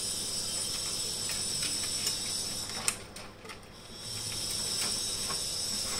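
A steady high hiss that thins out about three seconds in, comes back and then cuts off, with scattered small clicks and rustles from hands handling the front-panel connector cables at the motherboard header.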